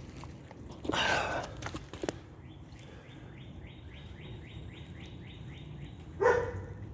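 A dog barks twice, once about a second in and once, louder, near the end. Between the barks comes a quick, even run of faint rising chirps, about four a second.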